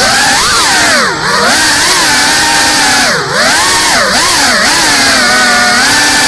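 GEPRC Cinelog 35 cinewhoop's brushless motors and ducted propellers whining. The pitch dives and climbs back several times, about five swoops, with the hardest dips about a second in and around three seconds in, as the throttle is cut and reapplied in the manoeuvres. It settles to a steadier hum near the end.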